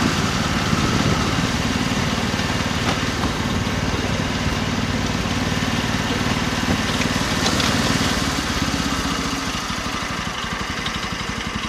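The small engine of a 7¼-inch-gauge BR Class 03 outline shunter locomotive running steadily under way, with a rapid even pulse. It grows a little quieter near the end.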